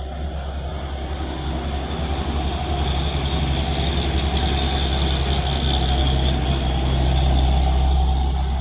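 Heavy truck passing by, its diesel engine rumbling and growing louder as it approaches, with a high whine over the engine; it is loudest near the end.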